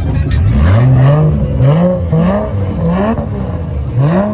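Turbocharged 2JZ inline-six of a MK4 Toyota Supra revved in quick repeated blips, about six short rises in pitch, with sharp pops from the exhaust between them from its rolling anti-lag tune.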